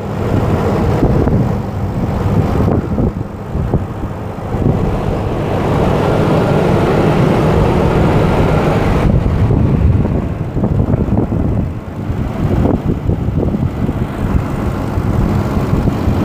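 Ford 5.4-litre V8 idling steadily, heard up close with the hood open.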